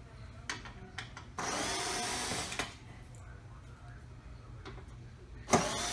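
Electric screwdriver running in short bursts, backing screws out of a TV's back panel: one run of about a second, with light clicks after it, and another that starts near the end.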